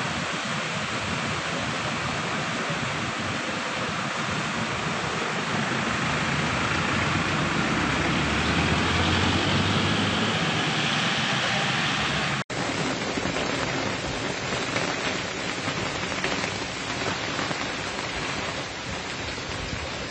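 Steady rush of a flooded river in spate pouring over a causeway, mixed with falling rain. About twelve seconds in the sound cuts out for an instant and resumes a little thinner.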